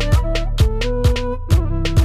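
Background music with a steady beat: a deep kick drum about twice a second over sustained bass and keyboard notes.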